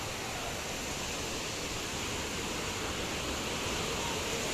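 Steady rushing noise of water.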